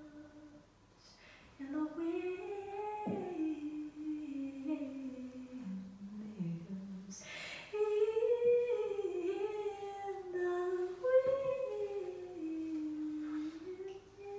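A woman humming a slow, wordless melody with no accompaniment, in two long gliding phrases with a breath between them about seven seconds in.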